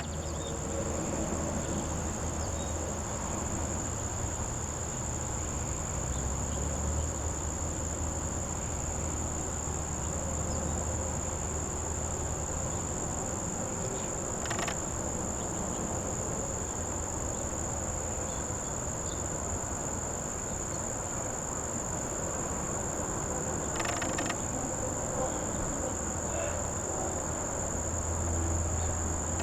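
Steady, unbroken high-pitched trilling of singing insects in late summer, over a constant low hiss; two short rustling noises break in about halfway and about two-thirds of the way through.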